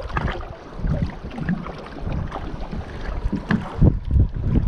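Wind buffeting the microphone with water lapping against the boat, and a few light knocks.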